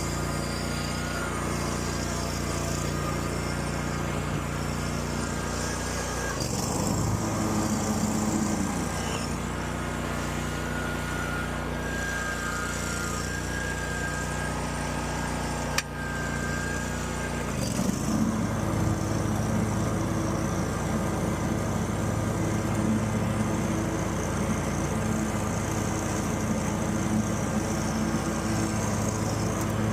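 Hustler Raptor X42 zero-turn mower's engine running steadily on a test run after its gasoline-contaminated oil was changed. Its pitch shifts twice, about 7 and 18 seconds in, and there is one sharp click near the middle.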